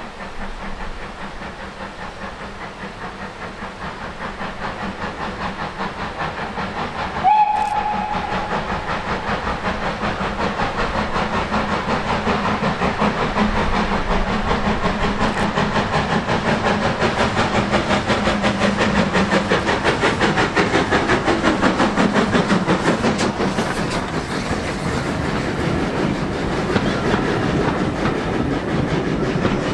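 Steam locomotive chuffing in a fast, even beat as it approaches and passes, growing louder. It gives one short whistle blast about seven seconds in. In the second half the coaches roll past close by with a rhythmic clickety-clack of wheels over rail joints.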